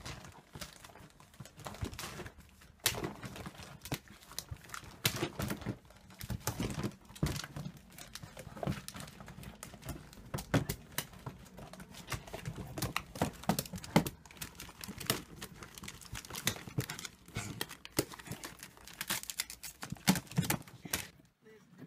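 A small dog scrabbling about inside a plastic bin of wrapping paper rolls: paper crinkling and rustling, with irregular knocks and scrapes on the plastic.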